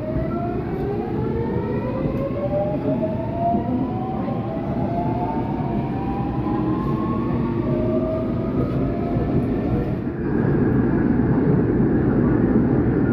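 Seoul Metro Line 8 subway train pulling out of a station and accelerating, heard from inside the car. The traction motors' electric whine climbs in several rising tones over a steady rumble of the running gear. About ten seconds in the tones fade and a louder rumble of wheels in the tunnel takes over.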